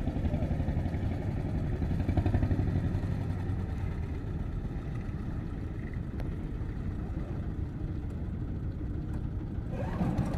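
Small engine on a motorised paddle sampan running steadily under way on a test run, growing somewhat fainter after about three seconds.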